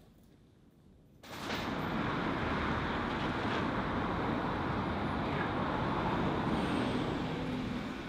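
City street ambience: a steady rush of road traffic noise that starts abruptly about a second in.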